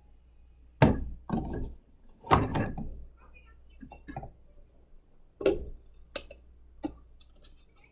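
Several hard knocks and clunks from the parts of a KitchenAid siphon coffee brewer being handled: the glass upper bowl lifted off and set into its stand, and the lid put on the glass carafe. The loudest knocks come about a second in and just after two seconds, with lighter clunks later.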